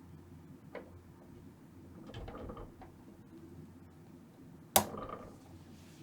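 Handling noises while a 12AX7 preamp tube is swapped in a vintage tube amplifier: a light click, a stretch of rustling and scraping, then a sharp click near the end.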